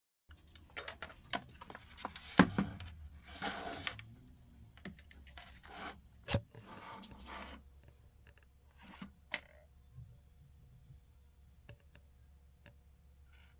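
Handling noise on a workbench: irregular clicks and knocks as a screwdriver and a padded backer fitted with computer boards are picked up and moved, with two louder knocks, one a couple of seconds in and one about six seconds in. Rustling comes after each of them, and the clicks thin out in the second half over a steady low hum.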